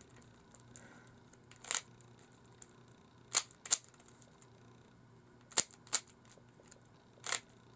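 Rubik's cube layers being turned by hand: six sharp plastic clicks, a single one, then two quick pairs, then a single one, spaced a second or two apart.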